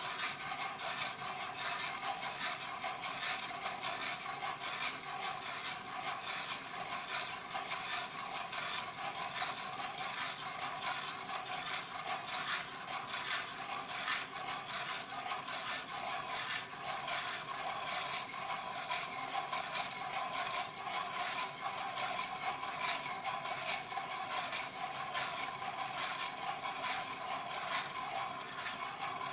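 Green coffee beans rattling and sliding inside a handheld Irijouzu ceramic roaster shaken steadily back and forth over a gas flame, early in the roast before first crack. A steady hiss runs underneath.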